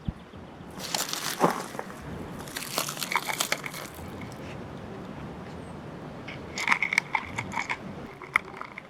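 Crinkling, crunching handling noises in several irregular bursts, with quieter stretches in between.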